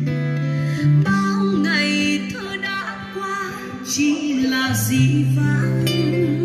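A song with guitar, bass and a singing voice played back through bare, unboxed Pioneer car speakers: cone woofers of 16 cm and 13 cm and a pair of dome tweeters, on test.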